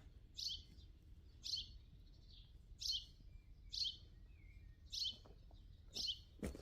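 A small songbird repeating one short, high, falling call about once a second, seven times over. A single knock near the end.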